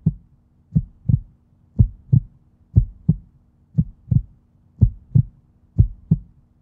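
Heartbeat sound effect: paired low lub-dub thumps repeating about once a second, over a faint steady low hum.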